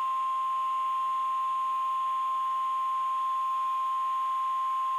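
NOAA Weather Radio 1050 Hz warning alarm tone: one steady, unbroken pure tone with a faint hiss under it. It signals that a warning message follows.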